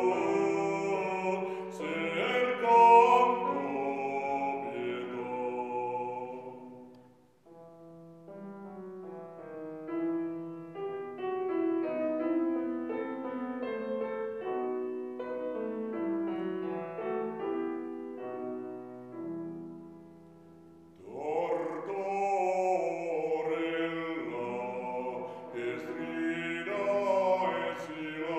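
Male classical singer with grand piano accompaniment. The voice stops about seven seconds in and the piano plays an interlude alone, and the singing comes back in over the piano about two-thirds of the way through.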